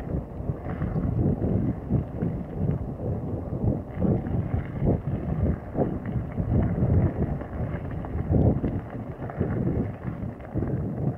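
Wind buffeting the microphone over the uneven rumble of a mountain bike riding a bumpy dirt track, with irregular knocks and rattles from the tyres and bike over the bumps.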